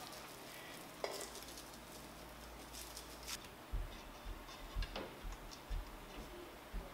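A glossy sheet crinkling and rustling as it is handled, then several soft, dull bumps and knocks as hands work on the 3D printer's frame.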